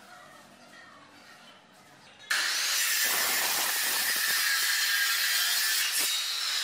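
Handheld electric circular saw cutting through a wooden baluster: a loud, steady whining saw noise that comes in suddenly about two seconds in.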